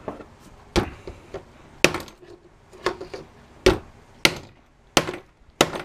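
A hammer striking the small transformer from an electric stapler to knock its casing open: about seven sharp clinking blows, roughly one a second, some harder than others.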